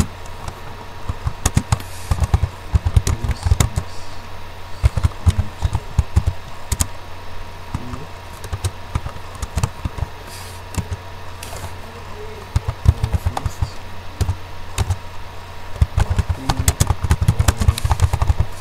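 Computer keyboard typing in short bursts of keystrokes with pauses between, as commands are entered, over a steady low hum.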